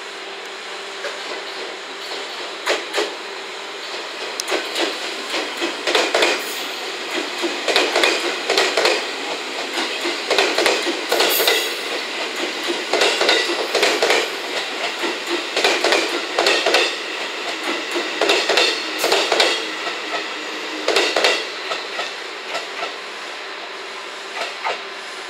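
JR West 221 series electric train passing at low speed, its wheels knocking in clusters every two to three seconds as each car's bogies cross rail joints or points.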